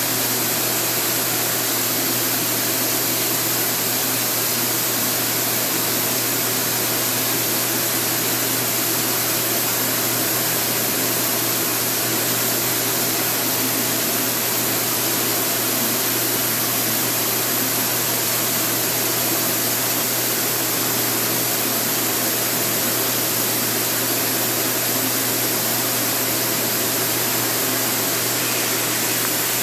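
A motor-driven blower running steadily, a constant whooshing whir with a low hum, as used while spray-coating a bathtub.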